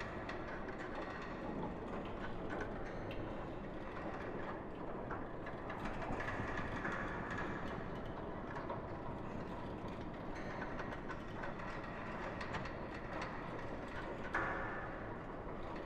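Ghost-ship ambience sound effect: a continuous rumbling, noisy wash with scattered clicks and creaks, and a sharper, louder creak about fourteen seconds in.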